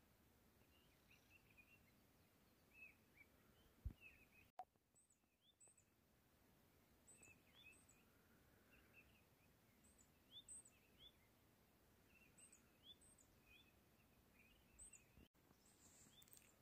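Near silence with faint, scattered chirps of small birds repeating throughout, and one soft knock about four seconds in.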